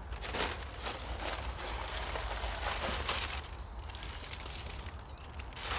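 Paper rustling and crackling as it is fed into a burning metal fire basket: several short rustling, crackling bursts, over a low steady rumble.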